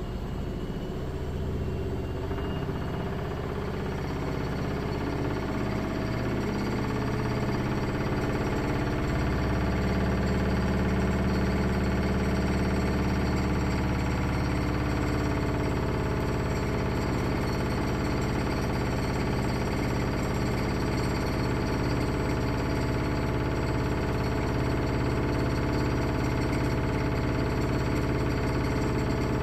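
Haier HLC1700AXS washer-dryer combo in its final spin: the drum motor's hum rises in pitch and loudness over the first several seconds as the drum speeds up, then holds steady at full spin speed.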